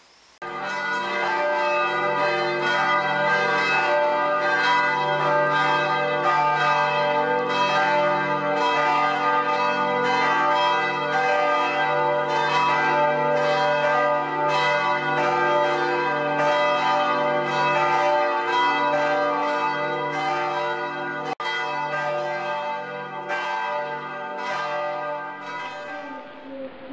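Church bells pealing: a continuous run of overlapping bell strikes, each ringing on, with a split-second break about three-quarters of the way through.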